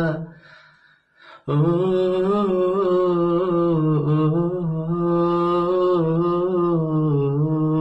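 A man humming a long wordless melody on one breath, with small turns and wavers in pitch, unaccompanied. A brief pause and a short breath come about a second in, before the humming starts again.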